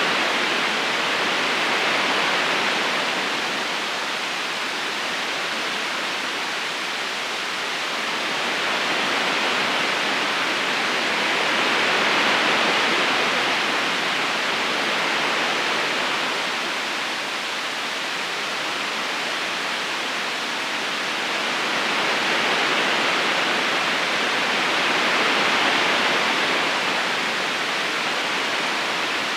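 Steady rushing of a river's current flowing over stones, an even wash of water noise that slowly swells and eases about every twelve seconds.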